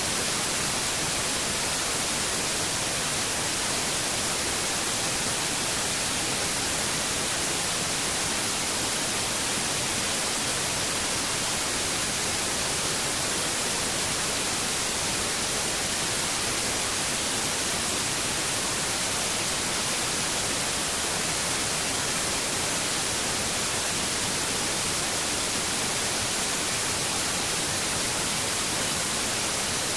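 Steady, even hiss like static, strongest in the high range, unchanging in level, with no distinct events.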